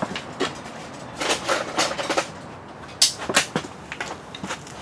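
A series of short knocks, clicks and clatters, about ten in all, from tools and parts being handled off-camera. The sharpest knock comes about three seconds in.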